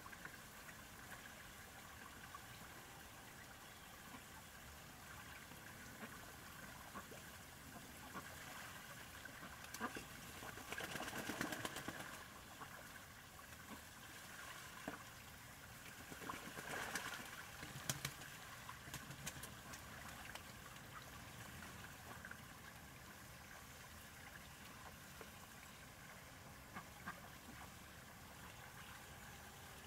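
Ducks splashing and bathing in a shallow tub of water, faint and steady, with two louder bouts of splashing near the middle.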